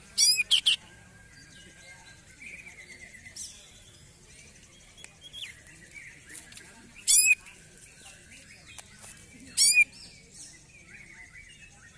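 Male greater green leafbird (cucak ijo) calling in an agitated mood. It gives short, very loud, shrill calls: three in quick succession at the start, then single ones about seven and nine and a half seconds in, with quieter twittering between.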